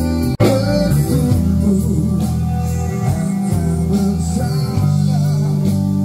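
A live band playing a song on electric guitar, bass guitar and keyboard, with a steady bass line. The sound drops out for an instant about half a second in.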